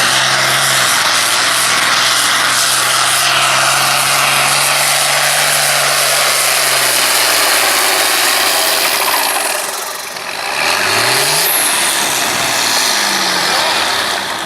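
Farm tractor's diesel engine running loud and steady at full throttle under pulling load. Its pitch sags and the engine drops off about nine to ten seconds in, then it revs up again briefly with a rising pitch.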